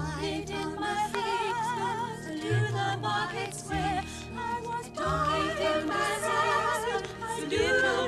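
Choir singing with vibrato over an instrumental accompaniment with a steady bass line, played back from a vinyl record.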